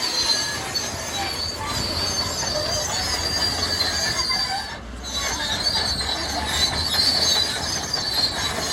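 Caterpillar D6R crawler bulldozer working: its steel tracks squeal over the low rumble of the diesel engine, dipping briefly about five seconds in.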